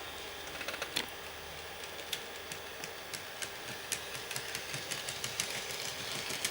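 H0-scale model locomotive running quietly on its track: a faint steady hum with irregular light clacks. The clacking is typical of the traction tyres beginning to break up.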